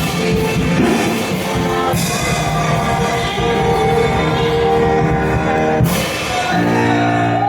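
Music with a band and cymbal crashes about two and six seconds in, settling on a held chord near the end.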